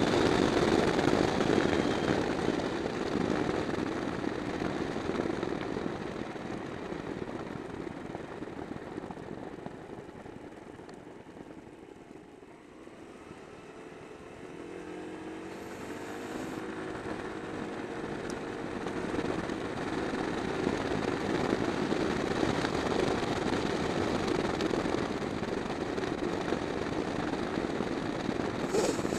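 Wind rush and engine noise from a moving Suzuki Sixteen scooter. The noise fades as the scooter slows about halfway through, then the engine note rises and the rush builds again as it picks up speed.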